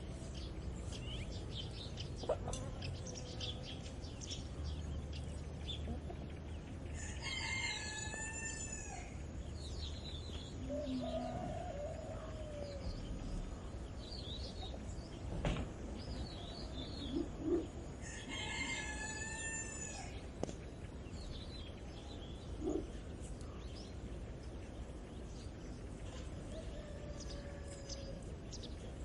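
A rooster crowing twice, each crow about two seconds long and some ten seconds apart, over small birds chirping, a few short low calls and a low rural background rumble.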